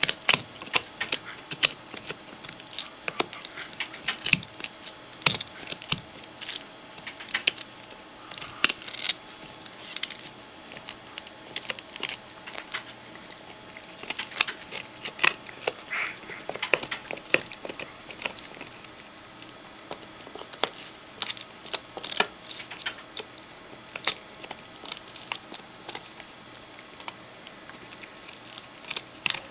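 Shetland Sheepdog gnawing a large rawhide chew: an irregular run of sharp clicks, cracks and crunches as its teeth work the hard hide, several a second.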